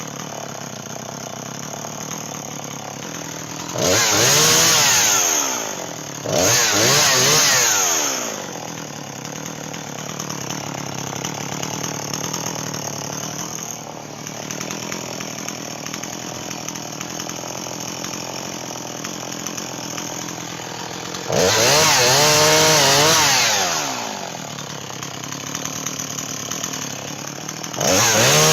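Chainsaw idling steadily, revved up to high speed and back down about four seconds in, again at about six and a half seconds, around twenty-one seconds, and once more near the end, each burst lasting about two seconds.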